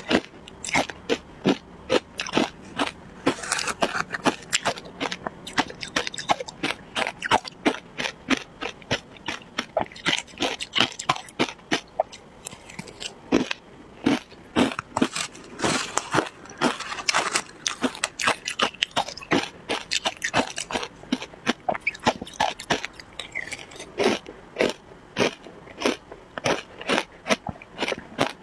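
Close-up crunching and chewing of matcha shaved ice in the mouth: a dense, continuous run of crisp ice crunches, several a second.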